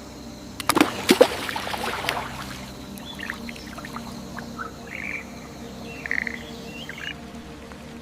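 Soft ambient music with a steady drone. Water splashes in a quick run for about a second and a half near the start, then a few short bird chirps follow.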